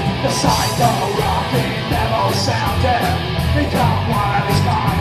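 Psychobilly band playing live: slapped upright double bass, distorted electric guitars and drums. A fast, steady beat runs throughout.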